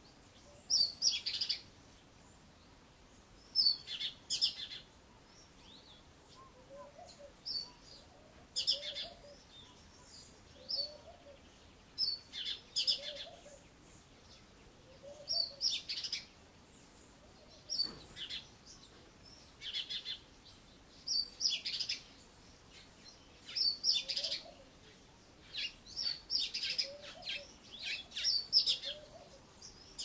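Cape Robin-chat singing its mimicry song: short, high phrases about every two seconds, each a copy of another bird's call, including a Southern Grey-headed Sparrow's in the second half.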